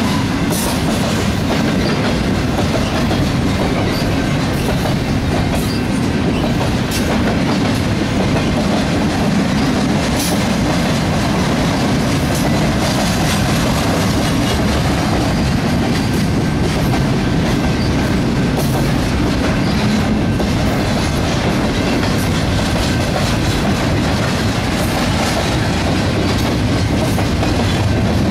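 Double-stack intermodal freight train's well cars rolling past at a steady speed: a continuous loud rumble of steel wheels on rail, with scattered sharp clicks of wheels over the track.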